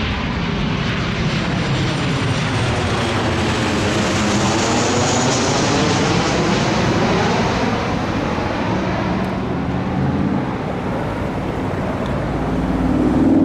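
Airplane flying low overhead: a loud, steady engine rush that swells toward the middle of the pass.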